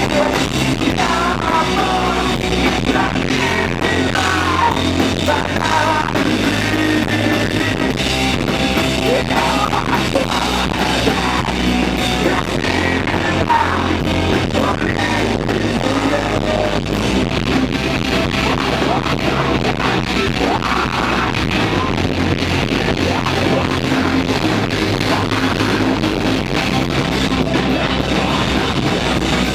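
Emo rock band playing live: electric bass, guitars and drums, with a sung vocal over them.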